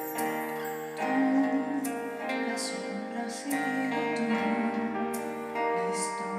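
Live band music from a sound-check rehearsal, with sustained chords and notes that change about once a second and a few bright high hits.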